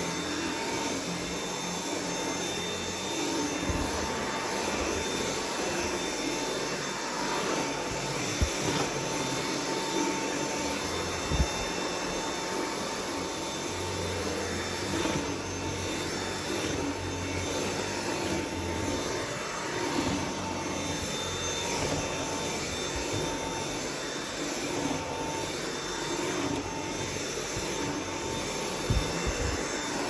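Dyson V7 cordless stick vacuum running steadily while pushed back and forth over carpet, a constant rushing with a steady high whine from the motor. A few brief knocks stand out over it.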